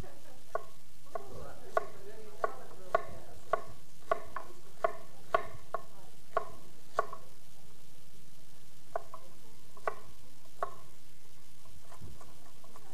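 Kitchen knives chopping vegetables on a wooden cutting board, in regular sharp knocks about one every half second to two thirds of a second. The knocks pause briefly after about seven seconds, then three more strokes follow.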